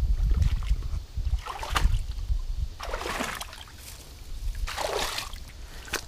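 A person breathing hard while climbing over rocks: three loud breaths about a second and a half to two seconds apart. Low rumble on the body-worn camera's microphone in the first couple of seconds.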